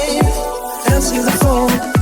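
Background music with a steady beat: deep kick drums whose pitch drops and a melodic line.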